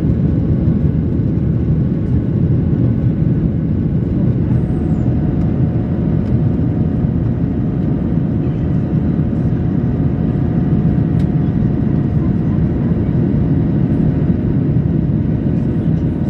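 Cabin noise of a Boeing 737-800 in flight shortly after takeoff: its CFM56-7B engines and the airflow make a steady, deep rush heard from inside the cabin. A faint steady hum comes in about four seconds in and holds.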